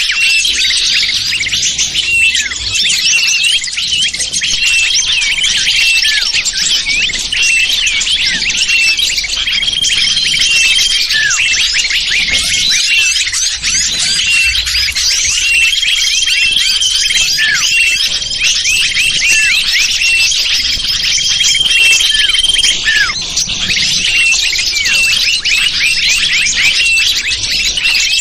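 Small-bird lure call (suara pikat for small wild birds): a dense, unbroken chatter of many high, quick chirps, with a flat whistled note held for about a second that recurs every few seconds.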